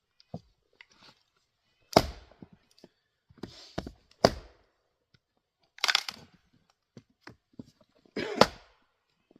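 3½-pound Craftsman single-bit axe chopping into a firewood round: about five sharp strikes a second or two apart, with the wood cracking. The piece resists splitting, which the axeman puts down to a knot.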